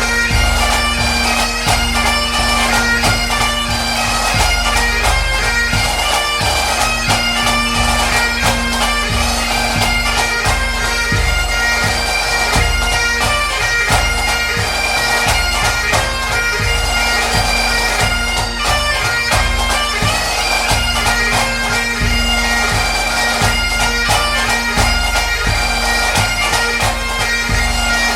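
Bagpipe music: a steady drone held under a changing chanter melody.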